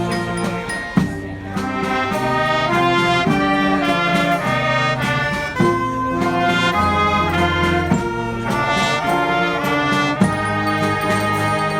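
Street brass band playing live: horns sounding chords over a low bass line, with occasional sharp drum hits.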